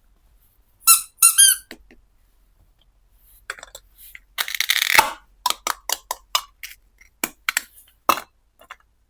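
Plastic toy kitchen pieces being handled: two short squeaks about a second in, a scraping rustle around four to five seconds in, then a string of light clicks and taps.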